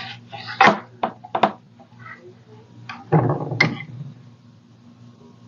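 Handling noise from crafting at a table: a few sharp taps and knocks in the first second and a half, then a brief scuffing rustle about three seconds in, over a steady low electrical hum.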